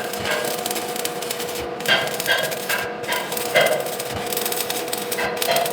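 Electric arc welding in the overhead 4G position: a continuous crackling, hissing arc over a steady electrical hum, with a few irregular knocks.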